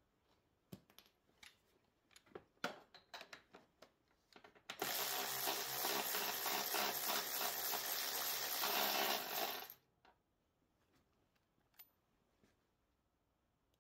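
A handheld shop tool runs steadily for about five seconds and stops abruptly, after a run of light clicks and knocks from handling metal parts.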